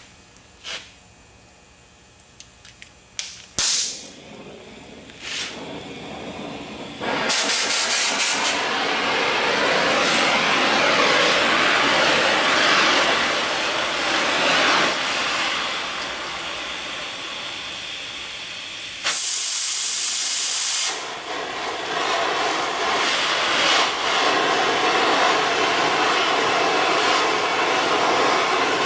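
Oxy-fuel cutting torch with a circle-cutter attachment cutting steel plate. A few short hisses and a pop come in the first seven seconds, then the steady loud hiss of the cutting flame and oxygen jet, with a sharper, louder hiss for about two seconds past the middle.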